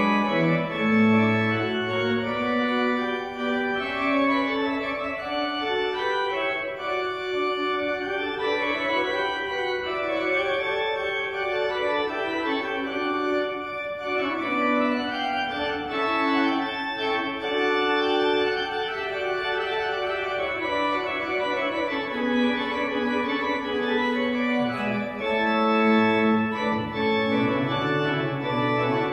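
Church organ playing a slow piece in sustained chords with moving inner voices; low bass notes sound briefly near the start and again near the end.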